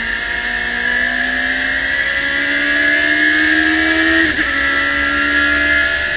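Radical SR3's motorcycle-derived four-cylinder engine at full throttle, heard from the cockpit, its pitch rising steadily as the car accelerates. A quick upshift about four seconds in drops the pitch, then the engine pulls on again.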